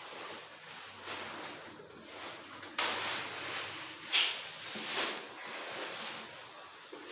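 Rustling and scraping from handling sand by hand: a plastic bag rustled, material scooped from a plastic bucket and shaken through a hand sieve. It grows louder a little under three seconds in, with sharp knocks or scrapes about four and five seconds in.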